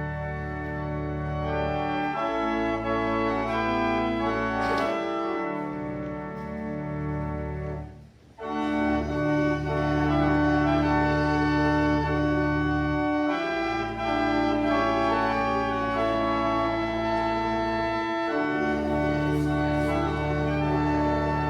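Church organ playing a hymn in sustained full chords over a deep pedal bass, with a brief break between phrases about eight seconds in.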